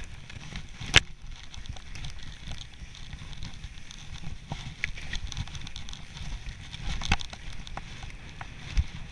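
Skis running over snow with a steady rushing hiss, wind buffeting the microphone, and scattered clicks and knocks, the sharpest about a second in and another about seven seconds in.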